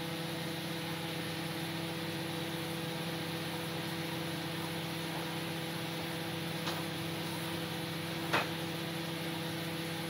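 ASDA George Home 800-watt microwave oven running mid-cycle: a steady hum with fan noise. Two short clicks come in the second half.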